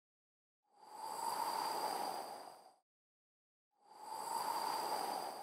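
Two whoosh transition sound effects, each a soft rush of noise that swells up and fades away over about two seconds, the first about a second in and the second about four seconds in.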